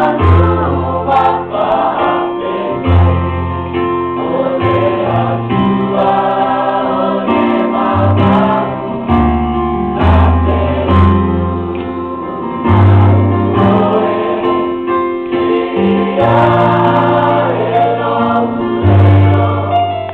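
Mixed choir of children and adults singing a hymn in Samoan, many voices together, over a keyboard accompaniment with held bass notes.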